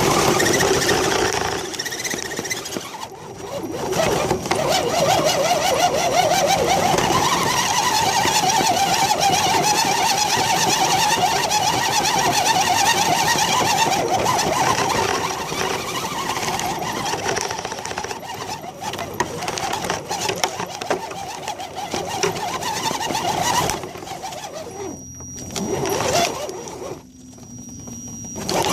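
Axial SCX10 RC crawler's electric motor and gear drivetrain whirring as the truck drives, with a steady, fluttering whine through most of the stretch that eases off near the end.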